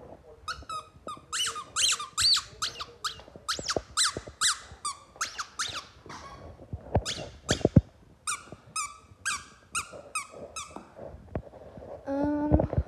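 A squeaky dog toy being squeezed again and again, short high squeaks about two a second, with a pause in the middle that holds a few dull knocks.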